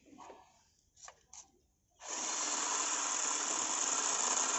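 A few faint clicks and handling sounds, then from about two seconds in a cordless drill runs steadily, its bit working into a broken steel bolt stuck in the engine's bracket mounting hole.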